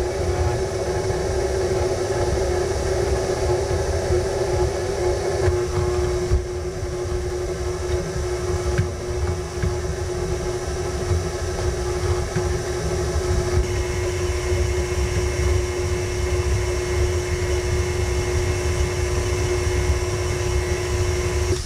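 KitchenAid Artisan stand mixer running steadily, its wire whisk beating chunks of cold butter into flour in the stainless steel bowl to make pie crust dough. The motor gives a steady hum with one clear held tone.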